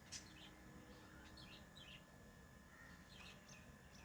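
Lovebirds chirping: one sharp chirp right at the start, then faint short chirps in small clusters about a second in and again near the end.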